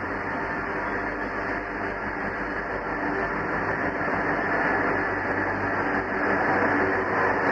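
Diesel engines of Pacific National BL class locomotive BL27 and a second locomotive hauling a freight train toward the listener: a steady engine sound of many tones over rumbling noise, growing louder as the train approaches.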